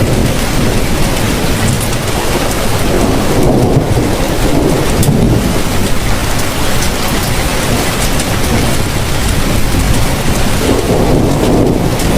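Heavy rain falling steadily, with a deep low rumble underneath that swells twice.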